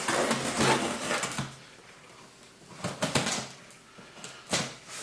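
Cardboard package being cut and pulled open: bursts of scraping and rustling, with a sharp knock near the end.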